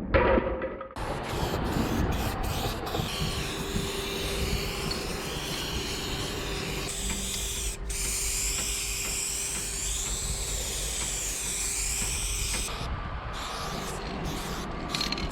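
Aerosol spray can fitted with a wide Astro fat cap, spraying in long steady hisses. The spray stops briefly several times in the first few seconds, once mid-way and several more times near the end, as the nozzle is pressed and released.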